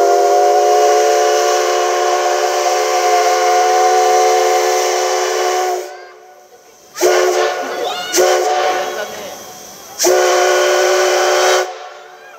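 Steam whistle of the JNR Class C56 steam locomotive C56 160, a chord of several notes. It sounds one long blast of about six seconds, then two short toots and a blast of about a second and a half near the end.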